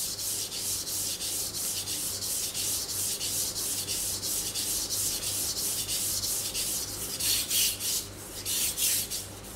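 Knife blade stroked back and forth on a whetstone, an even rasping at about four strokes a second held at a steady angle. About seven seconds in, the strokes turn louder and uneven: the sharpening angle has been changed to a wrong one, which alters the sound.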